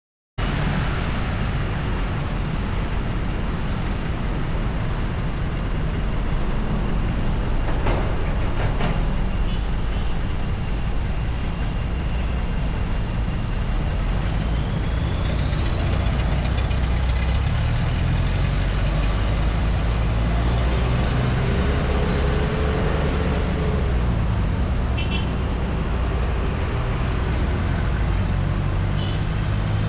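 Continuous road traffic on a busy city main road: a steady low rumble of passing car, truck and motorcycle engines and tyres, with a thin whine that rises steadily in pitch about halfway through.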